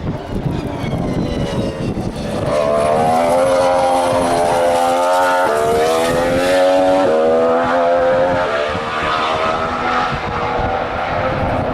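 A 2014 Formula One car's 1.6-litre turbocharged V6 hybrid engine accelerating hard. Its pitch climbs steadily, with an upshift about halfway through and another about a second and a half later.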